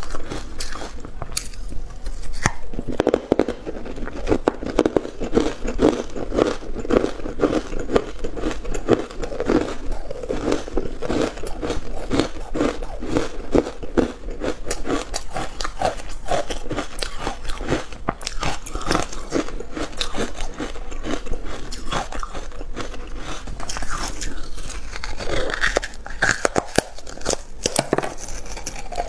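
Carbonated ice coated in matcha powder being bitten and chewed close to the microphone: a dense, rapid crunching that goes on throughout.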